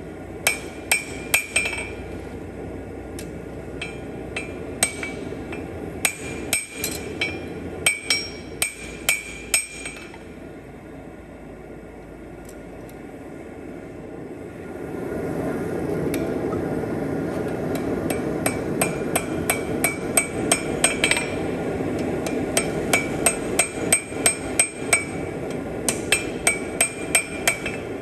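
Blacksmith's hand hammer striking hot steel on an anvil in bursts of quick, evenly paced blows, each strike ringing. Under the hammering, a steady rushing noise grows louder about halfway through.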